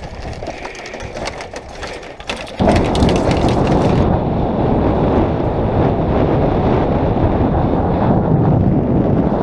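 Bicycle rattling and clicking along a gravel trail. About two and a half seconds in, this gives way to heavy wind buffeting the microphone in 25–30 mph gusts, a loud steady rumble.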